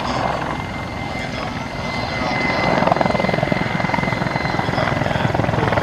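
Mi-24 attack helicopter flying low, its main rotor beating fast over a thin steady turbine whine. It grows louder about halfway through as it approaches.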